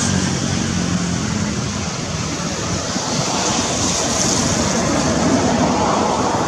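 Steady rushing noise of passing motor traffic, with an engine's low hum fading out at the start.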